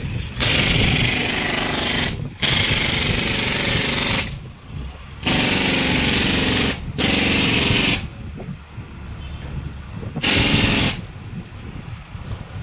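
Leaf-spring (blade set) repair machine hammering in rapid blows, in five bursts of one to two seconds each with short pauses between.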